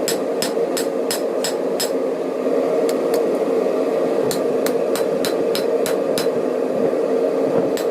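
Hand hammer striking hot knife steel on an anvil while drawing out the blade, about three ringing blows a second in short runs with brief pauses, over a steady rushing noise.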